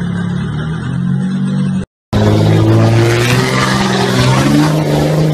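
A car engine running steadily, then, after a brief cut, a pickup truck's engine revving hard in mud, its pitch rising and falling.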